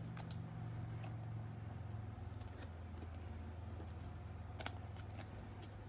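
Trading cards being handled and sorted on a table: a few faint clicks and taps, the clearest about two-thirds of the way through, over a steady low hum.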